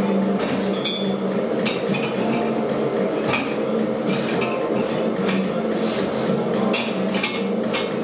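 Dishes and utensils being handled on a kitchen counter: about a dozen irregular, sharp clinks and knocks over a steady low hum.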